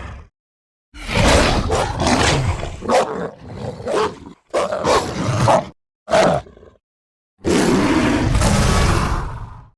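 Film werewolf creature sound effects: after a second of silence, a string of short growls and snarls broken by brief gaps, then, after a pause, one long roar lasting over two seconds.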